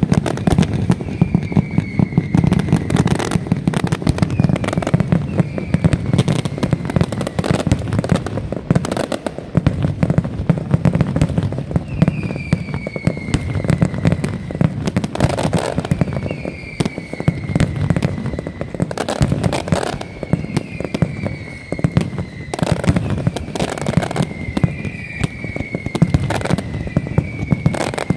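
A nocturna, the night-time Valencian mascletà, firing a dense, unbroken barrage of firecracker bangs and crackle. Short whistles falling in pitch repeat through it, several to a few seconds apart.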